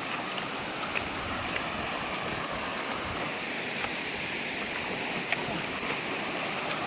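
Steady rush of a stream running over rocks, with a few short, sharp clicks of footsteps on the loose river stones.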